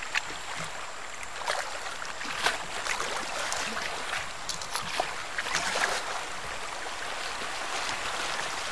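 Rushing water of a shallow river rapid around a sit-on-top kayak, with scattered sharp splashes and knocks, the loudest about two and a half seconds in.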